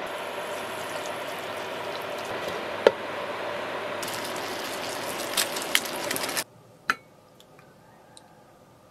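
Stew simmering in a frying pan: a steady bubbling sizzle with scattered sharp pops, the loudest about three seconds in. It cuts off suddenly about six seconds in, leaving quiet with a single sharp clink and a few faint ticks.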